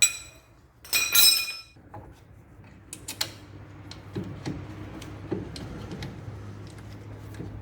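Metal clinks and knocks of a brake caliper and hand tools being handled as the caliper is fitted back onto its bracket over new brake pads, with one bright ringing clank of metal about a second in and lighter clicks and knocks after.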